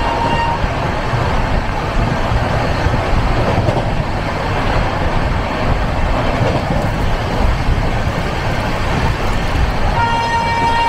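Moving passenger train heard from inside a carriage: a steady rumble and rattle of wheels on the track. A steady horn tone sounds at the very start, cuts off about half a second in, and sounds again near the end.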